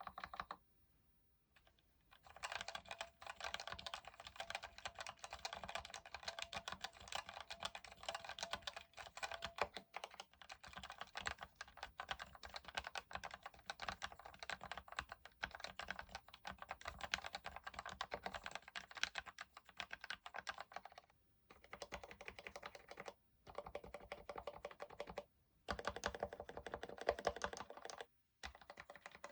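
Typing on an Actto B703 mini mechanical keyboard with Outemu Red linear switches, a fast, continuous patter of key clicks: stock switches first, spray-lubed switches from about a third of the way in. In the last third, short runs of presses separated by brief pauses test the stock stabilized keys with the case cover on.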